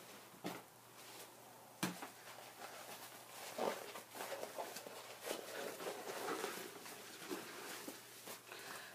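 Faint rustling and soft wet handling sounds of a resist sheet being pulled out from inside a wet-felted hat, with a single sharp tap just under two seconds in.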